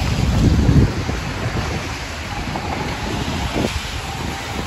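Rainy city street: a car passes close with a loud low rumble in the first second, its tyres on the wet road. After that comes a steady hiss of rain and wet traffic, with wind buffeting the microphone.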